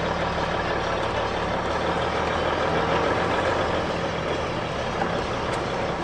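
A vehicle running steadily: an even low engine hum with a constant noise over it.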